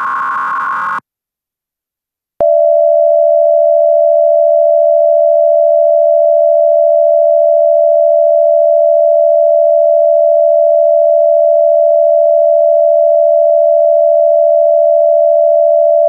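A brief harsh, buzzy electronic tone lasting about a second, then after a short gap a loud, steady single-pitch alert tone: a sine-wave stand-in for the Emergency Alert System attention signal.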